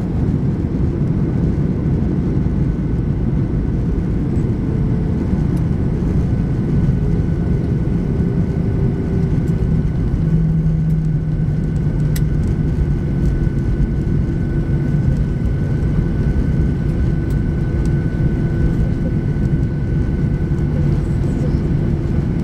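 Steady cabin noise inside an Airbus A310 rolling on the ground after landing. A low rumble from the airframe and wheels is mixed with the hum of the jet engines, and there is a faint steady high whine.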